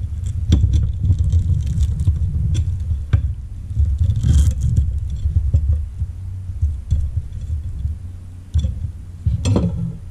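Serrated knife sawing through roasted seal flipper on a ceramic plate, with scattered knocks and scrapes of the blade and bone against the plate over a low, uneven rumble. There is a brief scrape about halfway through and a cluster of clatters near the end as the knife is set down.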